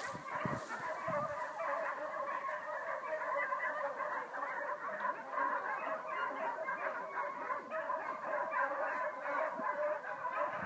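Many dogs barking at once in a dense, continuous chorus with no break.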